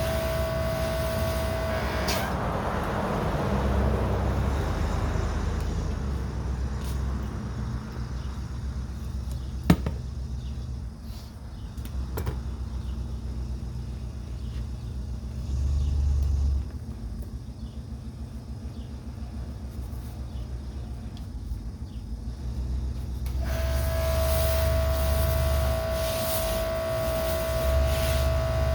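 Electric pressure washer motor and pump running with a steady whine, which stops about two seconds in and starts again near the end. In between there is a low rumble and a single sharp click.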